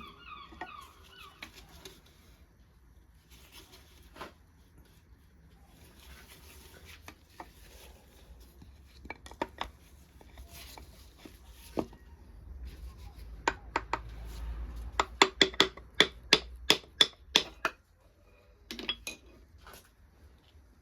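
Metal tools and engine parts clinking and knocking during a Rover V8 engine strip-down: scattered sharp clicks, then a quick run of metallic clinks about three a second in the second half.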